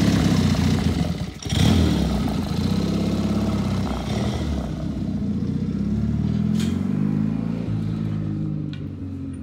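Motorcycle engine revving as the bike pulls away, with a short break about a second and a half in, then rising and falling in pitch as it accelerates off and slowly fades into the distance.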